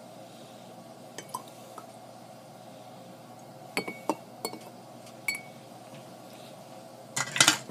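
Glassware clinking while water is added to cut a glass of bourbon: a couple of light taps about a second in, several sharper clinks midway with a short glassy ring, and a louder clatter of clinks near the end.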